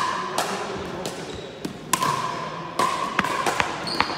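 Pickleball rally: several sharp knocks of paddles hitting the hollow plastic ball and the ball bouncing, some followed by a short ring.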